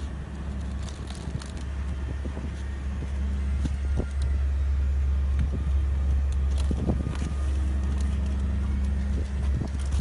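A steady low mechanical hum, with scattered light knocks and taps.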